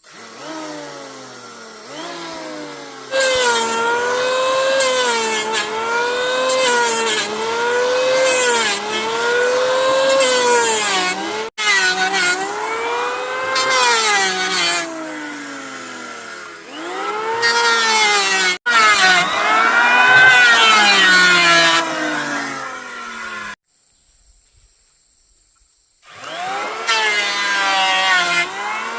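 Power saw cutting wood, its motor pitch sagging under load and rising again, cut after cut. It breaks off suddenly twice, stops for a couple of seconds near the end, then starts again.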